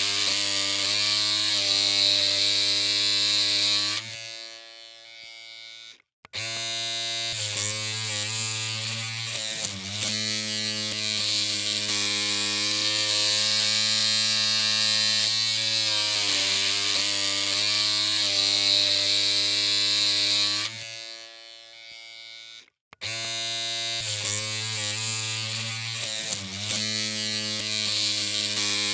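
Electric hair clippers humming with a steady buzz. The buzz cuts out twice, fading away over a couple of seconds, and switches back on abruptly each time.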